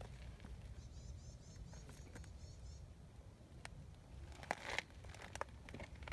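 Brief crackling and crunching of dry leaves and gravel, about four and a half seconds in and again at the end, over a low rumble. Faint high chirping repeats quickly for about two seconds near the start.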